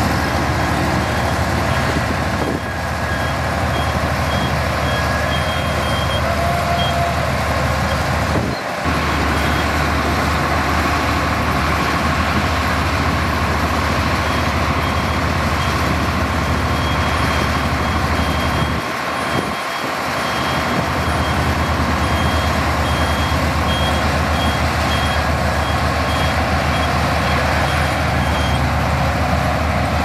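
Komatsu D58P bulldozer's diesel engine running steadily while pushing soil, with a reversing alarm beeping at intervals over it.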